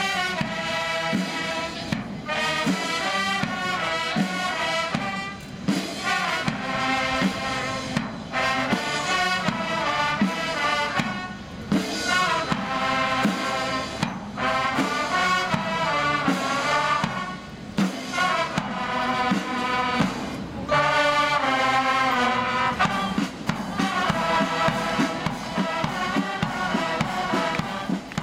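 Marching military band playing live: trumpets, trombones, saxophones, clarinets and sousaphones sounding together in short phrases with brief breaks between them.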